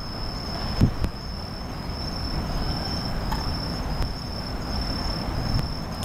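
Bell crickets (suzumushi) chirring steadily in one high, unbroken tone over a low, constant rumble. A short low thump comes about a second in.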